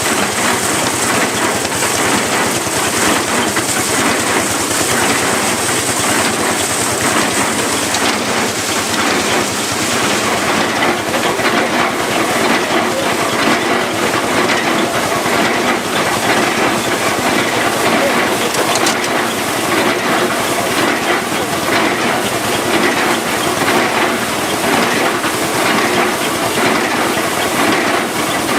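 Threshing machine running, belt-driven by a Lanz Bulldog tractor: a loud, steady rattling clatter and rush. A high hiss fades out about a third of the way through.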